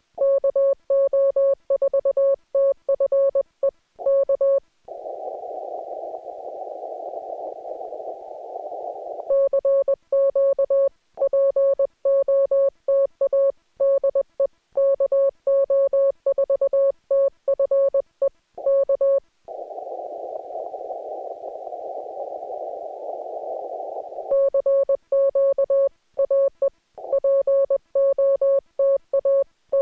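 Morse code (CW) from an amateur radio transceiver: a single tone of about 550 Hz keyed on and off in dots and dashes. Twice, about five seconds in and again about twenty seconds in, the keying stops for roughly four and a half seconds and the receiver's band hiss, narrowed by a CW filter, comes through instead.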